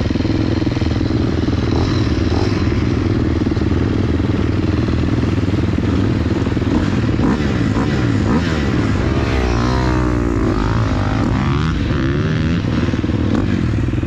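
KTM SX-F four-stroke single-cylinder motocross engine running at low revs, with another motocross bike's engine close alongside; the engines rise and fall in pitch between about 9 and 12 seconds in.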